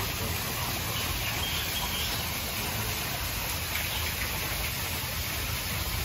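Steady rush of running water, as from a stream or small waterfall.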